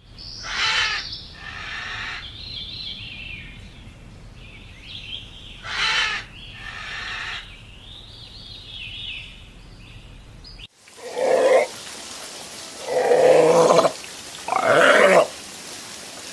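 Short high-pitched squeaky animal calls over a low hum. About eleven seconds in, after a sudden cut, a seal gives three loud, long calls.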